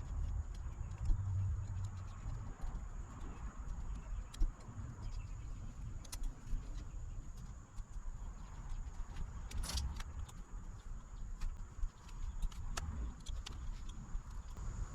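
Scattered small metallic clicks and clinks of bolts and hand tools as a steering wheel is bolted to its quick-release hub adapter, with one sharper click about two-thirds of the way through, over a low steady rumble.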